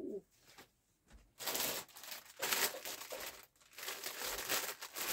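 Packaging being handled and crinkling, in three bursts that start about a second and a half in.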